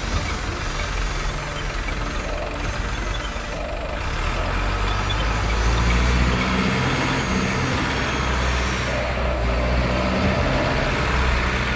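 Heavy diesel excavator engine sound running steadily, getting louder about five seconds in with a deeper, heavier note.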